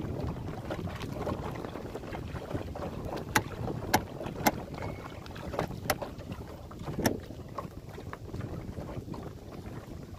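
Wind rumbling on the microphone and water washing against a small plywood mini boat under way. About five sharp knocks come between three and a half and seven seconds in.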